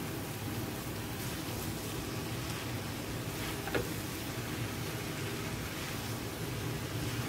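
A spatula stirring and turning thick grated-carrot halwa in a non-stick pan, with a few soft scrapes and one light click a little under four seconds in, over a steady hiss and low hum.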